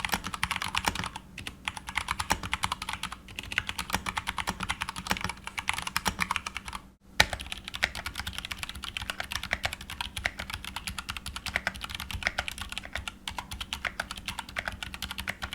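Rapid typing on a mechanical keyboard with tactile Cherry MX Brown switches: a dense run of keystroke clicks with short lulls and a brief break about halfway through.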